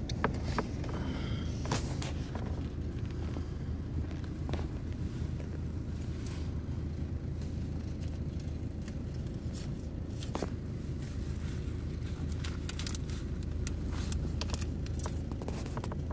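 Steady low hum of an idling vehicle, with scattered light clicks and crackles.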